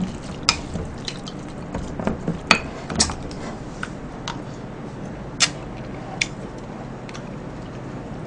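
Wooden spoon tapping and scraping against a ceramic bowl as rice is mixed, a scatter of short clinks and knocks.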